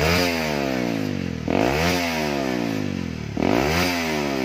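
Honda CB150R single-cylinder engine revved in three quick throttle blips, each rising fast and falling back slowly, through a gutted Ninja 250R muffler. The exhaust note is blaring, which the owner finds too harsh and wants made mellower.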